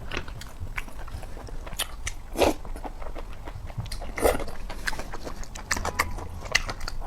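A person chewing and biting food close to the microphone: a run of short wet clicks and smacks, with louder bites about two and a half seconds in and again just past four seconds.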